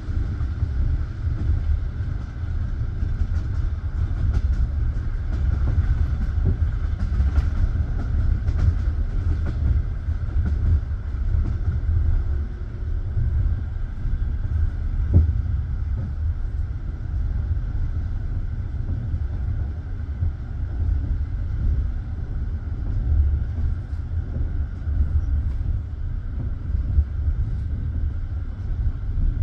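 Passenger train carriage rolling on the rails: a steady low rumble of wheels on track with faint scattered knocks, and one sharper knock about halfway.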